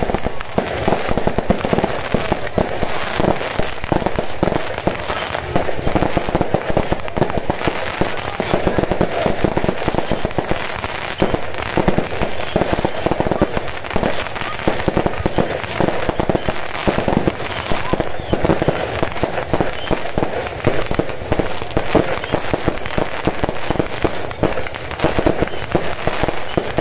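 Fireworks and firecrackers going off in a rapid, continuous barrage of bangs and crackles with no pause.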